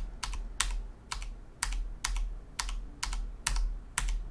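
Computer keyboard keys tapped one at a time, about two a second. A shortcut (Shift and minus) is pressed over and over to step through the layer blend modes.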